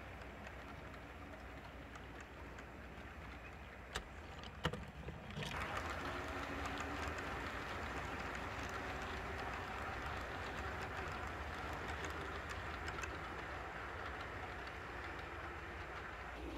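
HO scale model freight cars rolling along the track, a steady rolling rumble of small wheels on rail. Two sharp clicks come about four seconds in, and the rolling turns louder about five seconds in.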